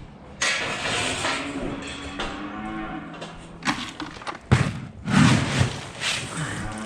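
Young dairy heifers mooing loudly, several long calls overlapping into a racket: hungry young stock calling for their corn feed. A couple of sharp knocks cut through about halfway in.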